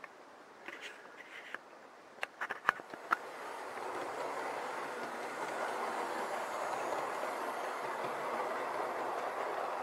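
Hornby City Express three-car EMU model train running on the track, its motor and wheels growing louder as it comes closer and then holding steady. A few sharp clicks come about two to three seconds in.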